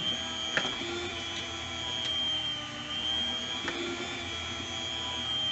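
Electric meat slicer running with a steady whine while slicing thick-cut smoked bacon, with a few clicks.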